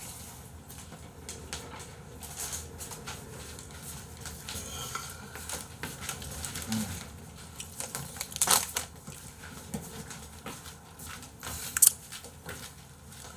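Scattered clicks, knocks and rustles of a gaming chair being handled and sat in, with one sharp knock about eight and a half seconds in and another just before the end.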